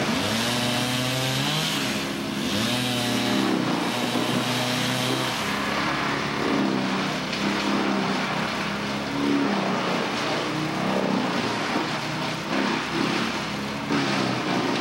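Engine-driven machinery running, its pitch shifting up and down several times, most in the first six seconds.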